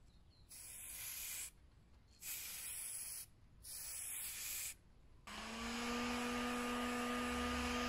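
An aerosol spray-paint can fires three hissing bursts of about a second each. About five seconds in, a heat gun switches on and runs with a steady fan hiss and a steady whine, warming the fresh coat of paint to start it drying.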